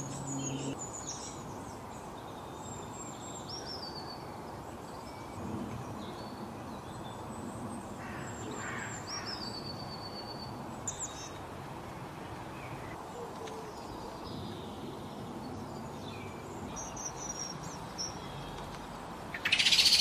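Garden songbirds chirping and whistling at a distance, short scattered calls over a steady background hiss. About a second before the end comes a loud, close burst of sound as a blue tit lands at the entrance hole of a wooden nest box.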